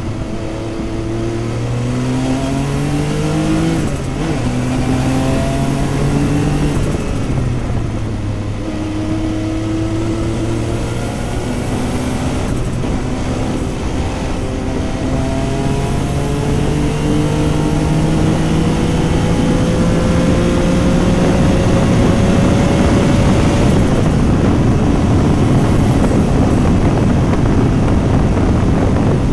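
Porsche 956's twin-turbo flat-six heard from inside the car at racing speed. The engine note climbs and drops back at each upshift several times, then makes one long steady climb through the middle. Near the end an even rush of noise takes over from the engine note.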